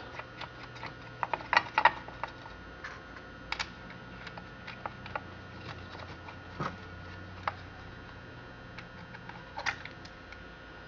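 Scattered light clicks and taps of the chainsaw and its parts being handled, loudest in a quick cluster about two seconds in, over a steady low hum.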